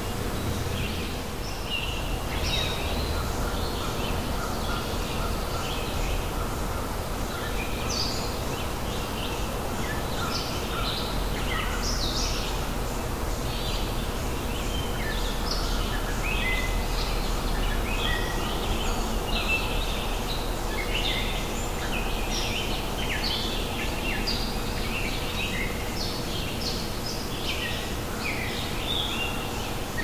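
A dense chorus of many small birds chirping and singing over a steady background hiss and low rumble. The chirping grows busier in the second half.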